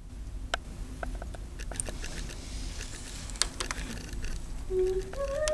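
Low, steady rumble of a freight train of autorack cars rolling past at a distance, with a few sharp clicks scattered through it. Near the end a pitched, voice-like sound starts.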